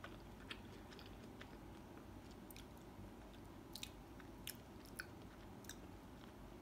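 Faint chewing of soft custard filling: scattered wet mouth clicks over quiet room tone.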